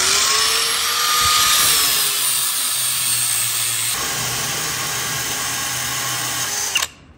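Cordless drill spinning a barrel sander against the steel casting of a motorcycle frame, a steady grinding with a whine that rises and eases as it spins up. It cuts off suddenly near the end.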